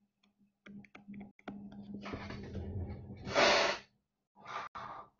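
A person breathing close to the microphone, with a louder, hissy breath about three and a half seconds in and a few faint clicks around it.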